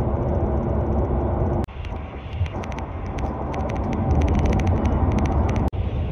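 Steady low rumble of a moving bus heard from inside the cabin, with a run of quick light rattling clicks in the middle. The sound breaks off abruptly twice.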